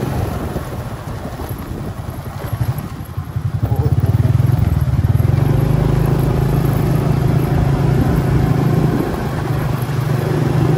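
Motorcycle engine running at road speed while riding, with rough rushing noise over its steady low hum; it grows louder about four seconds in.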